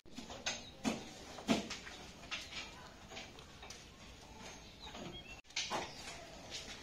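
Irregular knocks and clatter in a cattle shed as cows are handled on ropes: hooves on the concrete floor and the shed's fittings knocking, a dozen or so separate knocks with a low background between them.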